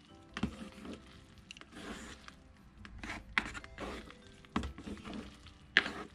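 Chopsticks stirring and lifting sauced instant yakisoba noodles in their cup, with irregular clicks, knocks and scrapes of the chopsticks against the cup's side and the wet noodles moving; the sharpest knock comes near the end.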